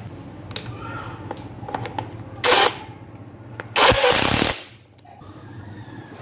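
Cordless impact wrench hammering in the bolts of a driveshaft's universal-joint flange on the output flange, in two bursts: a short one, then a longer one of under a second.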